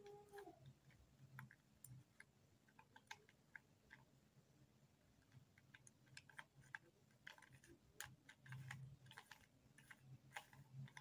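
Faint, irregular clicking of a plastic 3x3 Rubik's cube as its layers are twisted and handled, the clicks coming more often in the second half.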